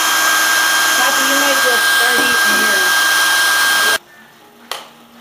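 Handheld hair dryer running with a steady rush of air and a constant motor whine, blowing a ping pong ball up into the air. It cuts off suddenly about four seconds in, and a single sharp tap follows shortly after.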